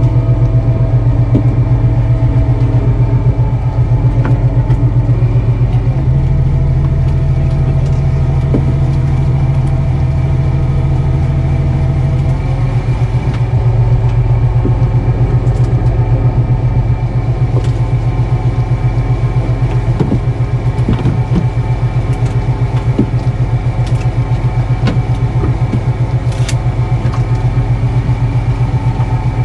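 Fishing boat's engine and deck machinery running steadily close by: a loud low hum with a fast, even throb, whose pitch shifts slightly about six and again about twelve seconds in. Scattered light knocks of gear being handled on deck.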